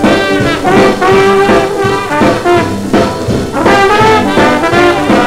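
Boogie-woogie swing band playing from a 1944 78 rpm shellac record, brass horns over a steady rhythm section. It is dubbed straight from the turntable with no filtering or noise reduction.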